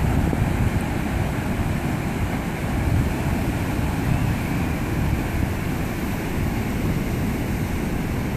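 Steady wash of ocean surf breaking over rocks, with wind buffeting the microphone in low rumbling gusts.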